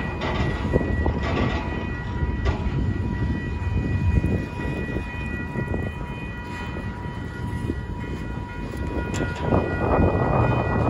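Empty intermodal well cars of a long freight train rolling past over the rails: a steady low rumble of wheels on track with scattered clanks. A thin steady whine sounds over it and fades away about nine seconds in.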